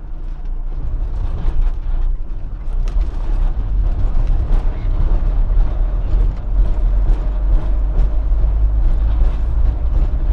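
Fiat Fiorino van driving slowly on town streets, heard from inside the cab: a steady low engine and road rumble with frequent small knocks and rattles.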